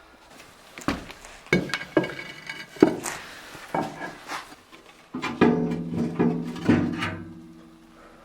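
Background music on a string instrument: a run of sharp plucked notes, then a chord held for about a second and a half from about five seconds in.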